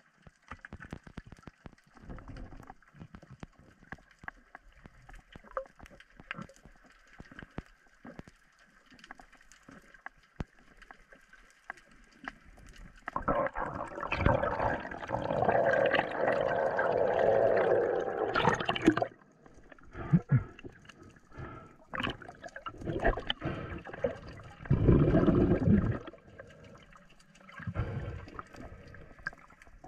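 Underwater sound picked up through a GoPro action-camera housing: scattered clicks and knocks, then water rushing and gurgling past the housing. The rushing is loudest for several seconds about halfway through, with another short loud burst near the end.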